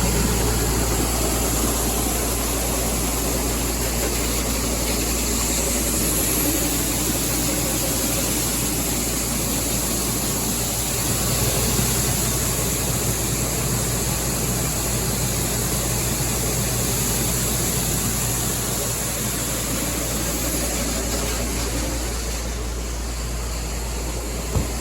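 Tractor engine running steadily while soybeans are unloaded through a grain screener, with a constant mechanical rush from the machinery. One short knock near the end.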